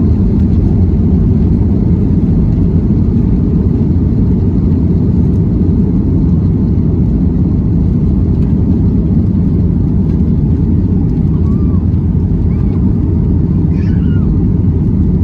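Cabin noise of a Boeing 737 MAX 9 at takeoff: its CFM LEAP-1B engines at takeoff thrust with the rumble of the takeoff roll and climb-out, a loud, steady low roar.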